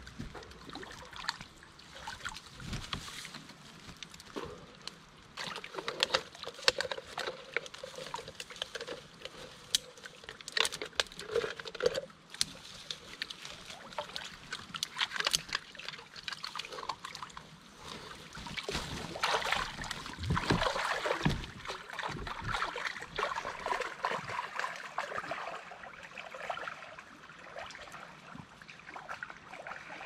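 A person swimming through water, splashing and sloshing in irregular strokes, busiest a little past the middle.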